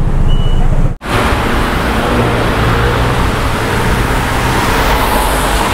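Steady city road traffic noise from passing cars, with a strong low rumble.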